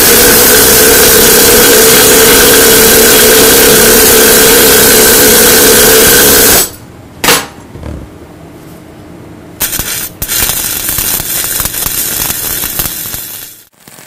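Electric welding arc on thick steel plate: a long, loud, steady hissing weld of about six and a half seconds that stops abruptly, then a few seconds later a quieter crackling weld of about four seconds.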